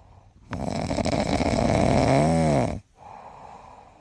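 A sleeping Dogo Argentino snoring: one long, loud snore starting about half a second in, its pitch rising and then falling near the end, followed by a quieter breath.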